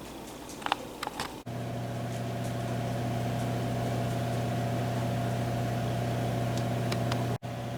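A few light clicks, then from about a second and a half in a steady, constant-pitched motor hum.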